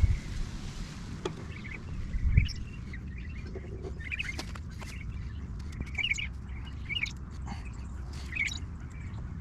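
Birds chirping in short calls, roughly one every second, over a low steady rumble, with a few sharp clicks and a dull thump about two and a half seconds in.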